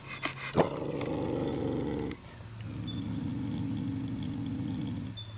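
A dog close by making two long, low, rough sounds in a row, the first about a second and a half long and the second about two and a half, with a couple of knocks at the start.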